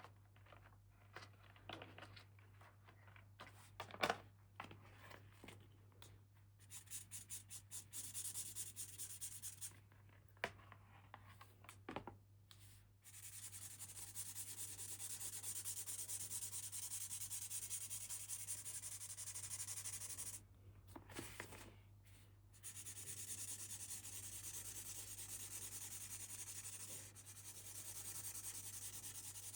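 Close-up ASMR handling of toy packaging: a few taps and a sharp click, then quick scratching strokes, then long stretches of steady rubbing and scraping on the surface.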